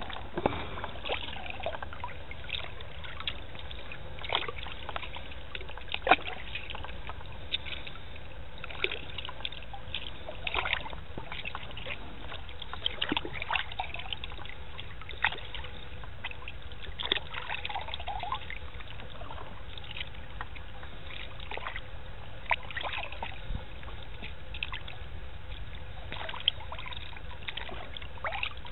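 A hand plunging again and again into sea water, squeezing crushed scad and mackerel under the surface to chum, with irregular splashes and trickles over a steady low background rumble.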